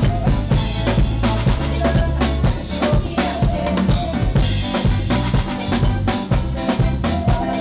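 Live band playing an upbeat song: a drum kit with kick and snare drives a steady beat over deep bass notes.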